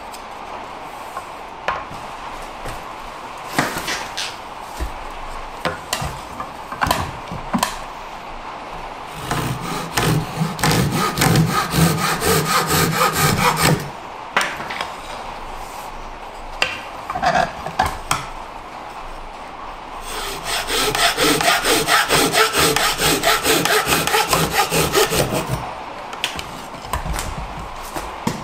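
Fine-toothed hand saw cutting across a green-wood spatula blank clamped in a shaving horse, in two runs of quick back-and-forth strokes, about nine seconds in and again about twenty seconds in. Scattered knocks of wood on wood come before them.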